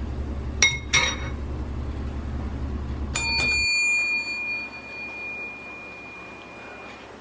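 A metal fork clinks against a ceramic bowl: two sharp clinks about a second in, then a stronger strike that rings out as a clear bell-like tone fading over about four seconds. A steady low hum underneath cuts off about three and a half seconds in.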